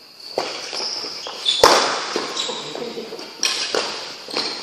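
Badminton rally in a large hall: sharp racket strikes on the shuttlecock a second or two apart, the loudest about a second and a half in, with short high shoe squeaks on the court floor.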